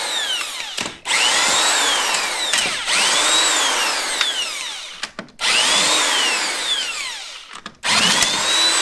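Corded electric impact wrench run in bursts to take the lug nuts off a car wheel: its motor whine climbs and then falls away with each run, stopping briefly about a second in, about five seconds in and near the end before starting again.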